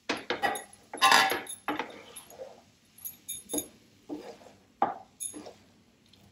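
A spoon knocking and scraping against a cooking pan as cooked rice is tipped in and stirred into the coriander masala: a run of uneven clatters and scrapes, loudest about a second in.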